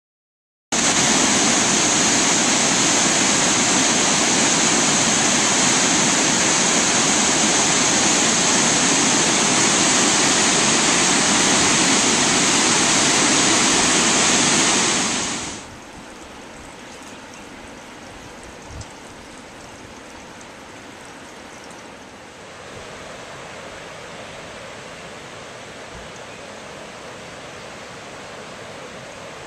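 Loud, steady roar of a large waterfall on the Genesee River heard close up. About halfway through it cuts off abruptly to a much quieter, distant rush of falls and river.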